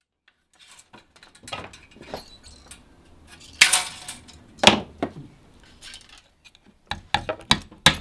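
Hand-tool work on a wooden ash hurley: light scrapes and clinks, with two louder sharp strokes near the middle. About seven seconds in comes a quick run of hammer taps, about three a second, driving small nails through the metal band on the hurley's bas.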